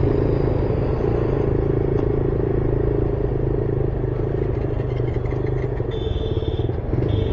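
Motorcycle running steadily while riding, with engine and road noise. Near the end a short high-pitched tone sounds twice.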